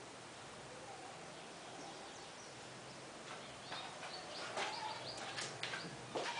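Faint background, then a run of short bird chirps and calls starting about halfway through.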